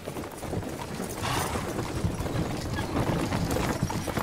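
Horses' hooves clopping along, with a steady rattle of a horse-drawn cart and its harness. The sound cuts off suddenly near the end.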